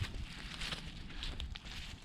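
Bare feet walking on a dirt trail: a few soft steps over a faint outdoor hiss.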